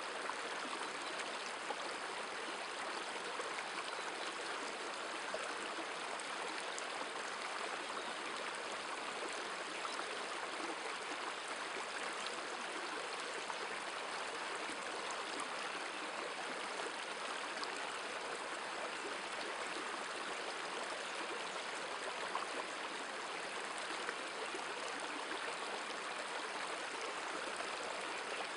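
Shallow river running over a stony bed: a steady, even rush of flowing water, with a few faint ticks.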